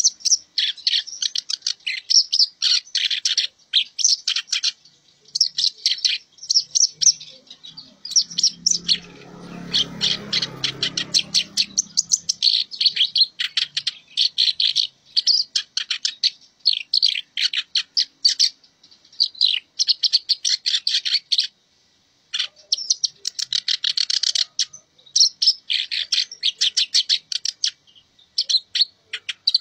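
Caged kerak basi alis hitam (a reed warbler) singing continuously: long runs of fast, scratchy chattering phrases with short gaps between them. A faint low rumble swells and fades about a third of the way through.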